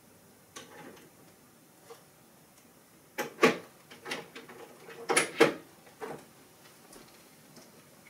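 Scattered knocks and clatters of hard objects being handled, as when rummaging through tools. The loudest come in two clusters, about three and five seconds in.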